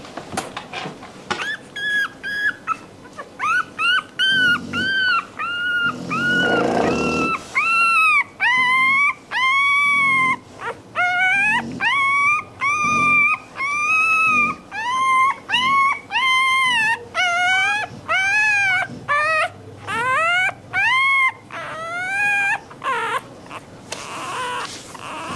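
Newborn Rottweiler puppy crying: a steady string of short, high whines, each rising and falling in pitch, roughly one a second.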